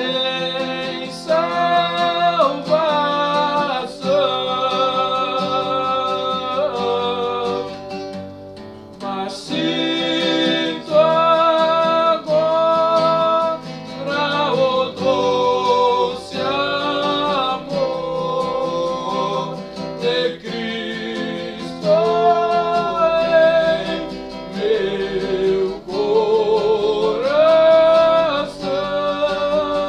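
Male voices singing a slow hymn to acoustic guitar accompaniment, the melody moving in long held notes over a steadily strummed and plucked guitar.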